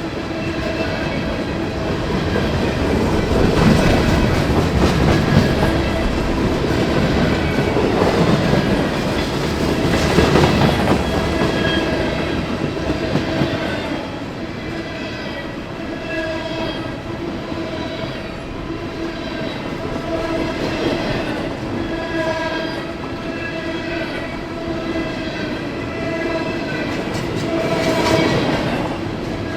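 A long CSX freight train rolling past, its wheels clattering over the rails and crossing, louder in surges as the cars go by. A steady pitched ringing runs underneath the clatter.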